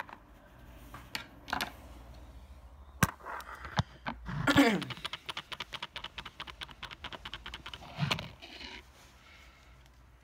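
Scissors and a plastic blister pack being handled and cut: scattered clicks and snips, then a quick run of rapid small clicks lasting about three seconds. A short, loud falling vocal sound comes about four and a half seconds in.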